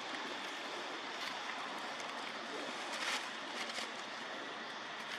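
Steady outdoor background hiss, with a few brief crackling rustles of dry leaves, about a second in and again around three to four seconds in, as the monkeys move over leaf-strewn stones.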